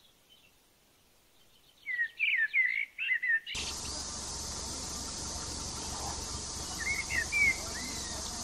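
A songbird singing short whistled phrases that slide up and down, a run of them about two seconds in and again near the end. A little over three seconds in, a steady hiss starts abruptly and carries on under the birdsong.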